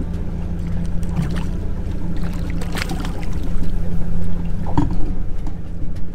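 Boat's Yanmar inboard engine running steadily at idle, with a few short splashes or knocks about a second in, around three seconds in and near five seconds in.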